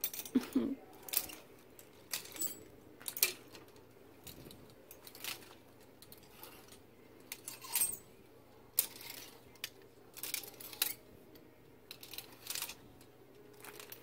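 Clear plastic clothes hangers clacking and sliding along a clothing rack as garments are pushed aside one by one: a string of irregular, sharp clacks.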